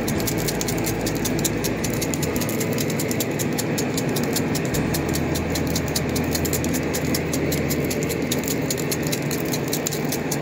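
A small machine running steadily, with a fast, even ticking rattle.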